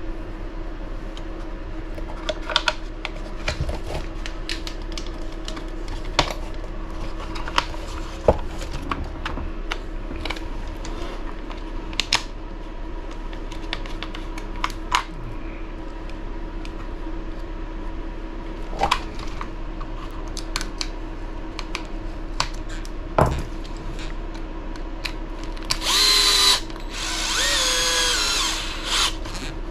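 Scattered clicks of small tools and plastic parts being handled, then near the end a small electric driver whirring in two bursts with a wavering whine, driving the radio tray's mounting screws into the RC buggy chassis. A steady low hum runs underneath.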